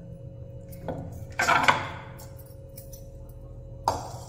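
Stainless steel bowls and utensils clanking on a stone kitchen counter: a knock about a second in, a louder ringing clatter just after, and another clank near the end, over a steady low hum.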